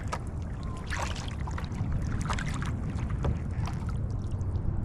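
Kayak paddle strokes: water splashing and dripping off the paddle blades in irregular small splashes, over a steady low rumble of wind on the microphone.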